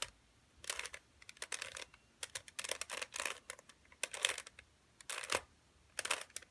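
Plastic Rubik's cube being turned quickly with finger tricks: about seven short bursts of rapid clicking turns, a fish-case OLL algorithm done with the left hand.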